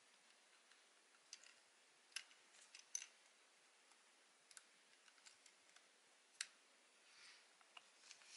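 Faint, scattered clicks and taps of small parts of an Agidel electric shaver being handled during reassembly, the sharpest a little over two and three seconds in and again past six seconds.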